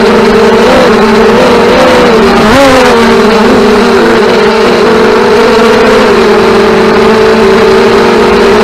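FPV racing drones' motors and propellers whining loudly and continuously, the pitch wavering up and down as the throttle changes.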